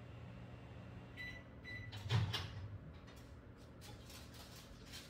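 Microwave oven signalling the end of its heating cycle with two short high beeps about a second in, followed by a clunk as the door is opened, then a few light clicks and rustles.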